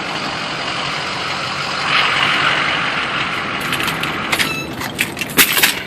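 Steady running noise of an idling Ford F350 pickup heard from inside the cab, with a hissing swell about two seconds in. A string of sharp clicks and knocks follows near the end.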